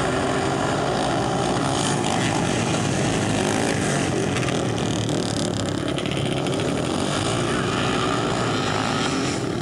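A pack of dirt-track racing motorcycles running at high revs together, a steady loud engine buzz as the field leaves the start and races through the first turn.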